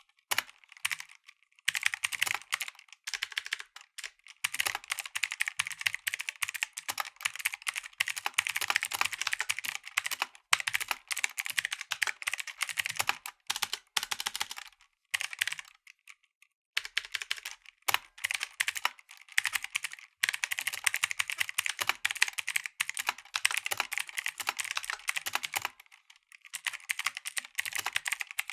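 Mechanical keyboard with clicky blue switches being typed on in quick, dense runs of keystrokes. The typing breaks off for brief pauses, the longest about halfway through.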